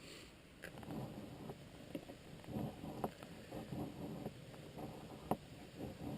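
A knife blade shaving feathers off a stick of hard, frozen, resin-rich fatwood: repeated short scraping strokes with a few sharp clicks.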